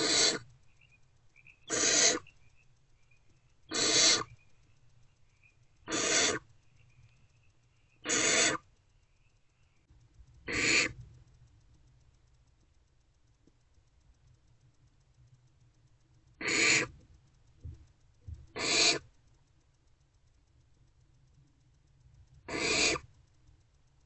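Barn owlets giving short, raspy hissing calls: the 'snoring' food-begging call of barn owl chicks. The calls come about every two seconds, nine in all, with a pause of several seconds after the middle.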